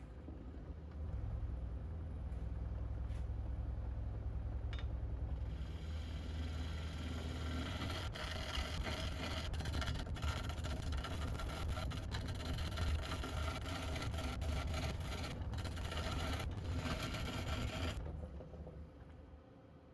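Wood lathe motor starting up and running with a steady low hum. A turning tool scrapes against the spinning workpiece from about five seconds in, and near the end the scraping stops and the lathe winds down.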